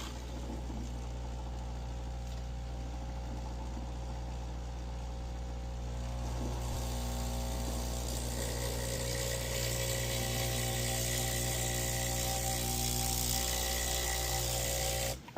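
Breville BES900XL espresso machine's pump running through a shot with a steady buzzing hum. A hissing rush joins about six seconds in, and the pump cuts off just before the end. The technician judges the pump to be bad, the cause of the machine's low pressure.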